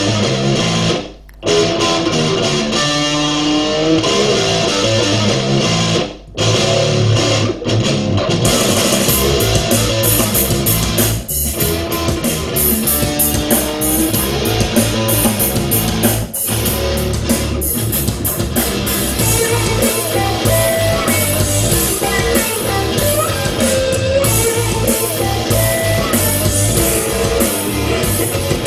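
Instrumental rock-funk music with electric guitar, played loud through a pair of Bluetooth ceiling speakers in acoustic hoods, with the bass boosted. The music drops out briefly about a second in and again about six seconds in.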